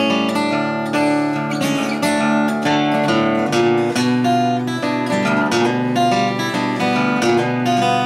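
1996 Taylor 714CE steel-string acoustic guitar played solo, a continuous flow of plucked notes ringing over chords.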